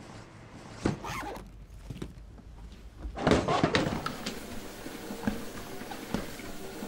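A few light knocks of packing, then a suitcase zip pulled in a quick rasp about three seconds in. After that a treadmill runs with a steady hum, with occasional soft knocks of footsteps on the belt.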